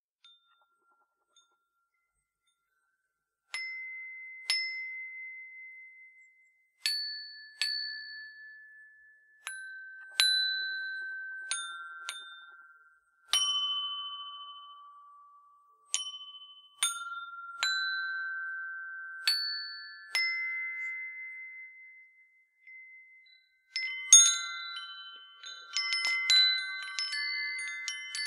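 Hand-forged copper tube wind chime tuned to a Chinese pentatonic scale. After a few seconds of silence, single tubes are struck one at a time with a wooden stick, each note at a different pitch ringing on and slowly dying away. Near the end, several tubes sound in quick succession and ring together.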